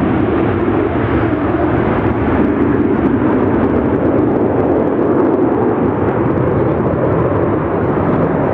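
Formation of eight KAI T-50B Golden Eagle jets flying overhead, their General Electric F404 turbofans making a loud, steady jet engine noise.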